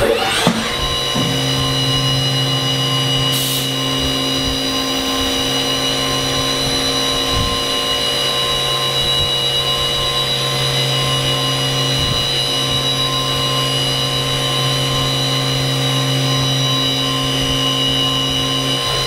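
CNC milling machine's spindle running at speed while a pointed engraving cutter scribes a shallow pass into a steel muzzle brake: a steady high whine with a lower hum that comes in about a second in and holds, dipping briefly a couple of times.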